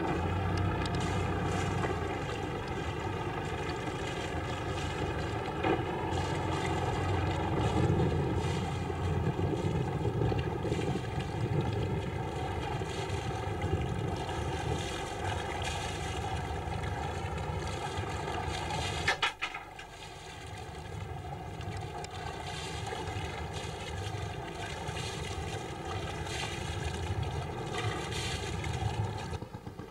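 Fishing boat's engine running steadily, a constant drone. A sharp click about two-thirds of the way through, after which it is a little quieter.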